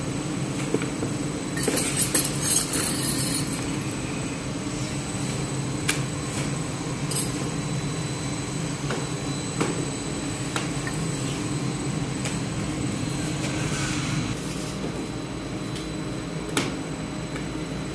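Steady low mechanical hum of the bakery's equipment, with scattered sharp knocks and clicks of a rolling pin on the floured wooden board as flatbread dough is rolled out, and a brief scraping rustle about two seconds in.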